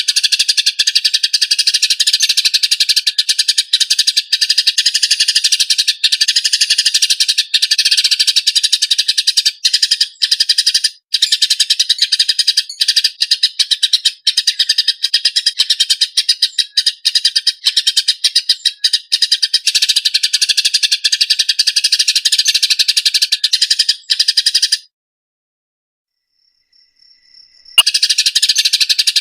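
Eurasian tree sparrows chirping in their harsh, rapid, tightly packed fighting calls, non-stop. The chirping cuts out for about three seconds near the end, then starts again.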